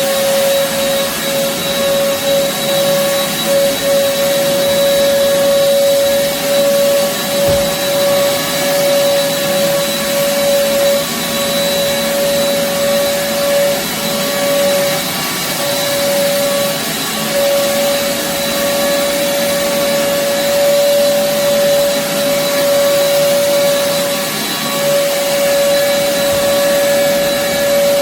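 An old upright vacuum cleaner running steadily over carpet, with a strong motor whine and a fainter high whistle, swelling and dipping slightly as it is pushed back and forth. Its owner says it has lost its suction after about ten years of use.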